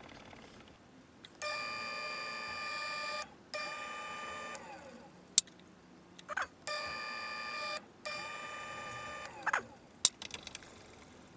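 Drill bit in a bench mill-drill cutting into a metal plate with a steady high-pitched whine, in four stretches of one to two seconds as the bit is fed in and eased back, with a few sharp clicks in between.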